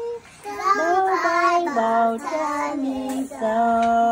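Young girl singing a short phrase of held notes, ending on a long sustained note.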